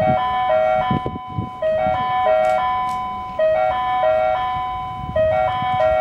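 Electronic chime melody from the railway station's platform speakers: a short jingle-like phrase of several bright notes that starts abruptly and repeats about every second and three quarters, the kind of tune sounded as a train approaches.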